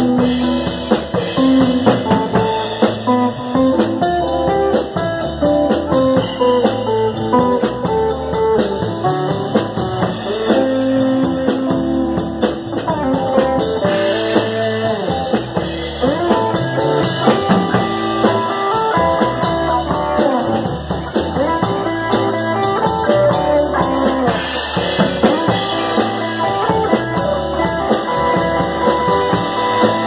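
Live band playing: two electric guitars over a drum kit, with held guitar notes and a steady beat.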